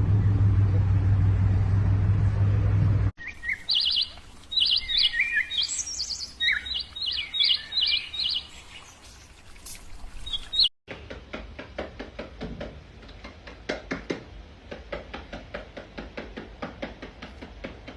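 A steady low hum for about three seconds, cutting off abruptly into a bird chirping in short, repeated rising and falling calls for several seconds. After a sudden break near the middle, a run of faint irregular clicks or taps.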